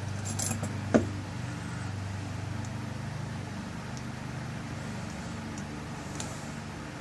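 Small metallic clicks and taps of a lock cylinder's tail piece being screwed on and tightened. The sharpest click comes about a second in, with a few faint ticks later, over a steady low hum.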